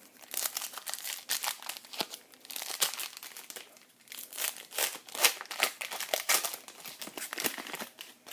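Foil wrapper of a baseball card pack crinkling and tearing as it is opened by hand, a dense run of crackles with a short lull about four seconds in.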